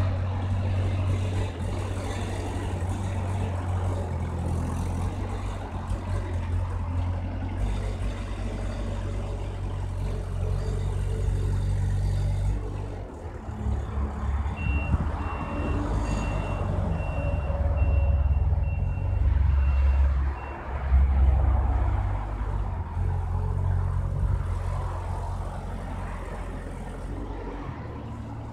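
Wolf WL780 wheel loader's four-cylinder XiChai diesel running as the loader manoeuvres. Midway its reversing alarm beeps steadily, about two beeps a second for some six seconds.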